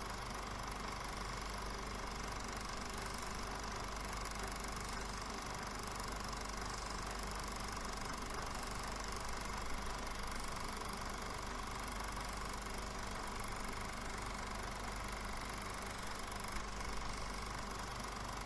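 Film projector running steadily, laid over a silent film as its soundtrack: a constant mechanical running sound with steady humming tones in it.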